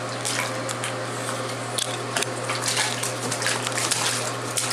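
Baby's hands splashing and slapping bubble-bath water in a bathtub: an irregular scatter of small splashes over a steady low hum.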